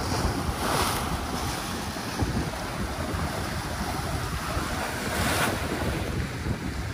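Surf breaking and washing over jetty rocks, with wind buffeting the microphone. Two waves surge louder, about a second in and again around five seconds.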